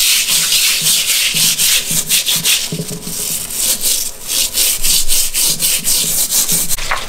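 A wet Maya stone for grinding maize being scrubbed clean with quick back-and-forth strokes, about four a second.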